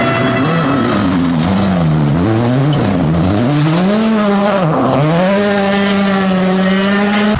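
Rally car engine working hard: the revs drop and climb again twice as the driver lifts and accelerates, then hold steady at high revs near the end.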